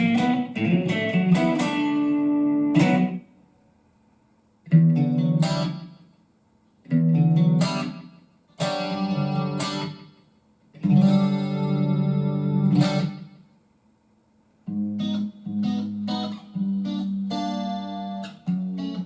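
Guitar played through a BOSS eBand JS-10 amplifier: strummed chords left to ring, separated by short silent gaps, then choppier rhythmic strumming over the last few seconds.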